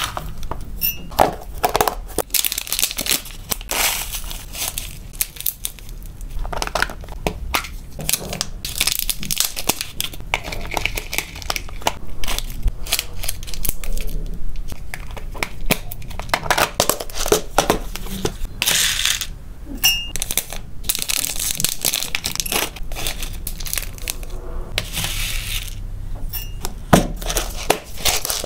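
Thin clear plastic packaging crinkling and rustling in the hands, mixed with dry hamster food (flakes and small pellets) being scooped and rattled in plastic boxes. The sound is irregular crackling with many small sharp clicks.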